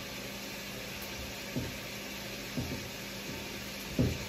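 Diced pork chops frying in oil in a pan: a steady sizzling hiss, with three soft knocks.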